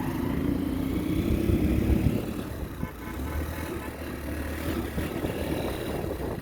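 A vehicle engine running steadily, with a low drone that is heavier in the first two seconds and settles to a steadier hum from about three seconds in.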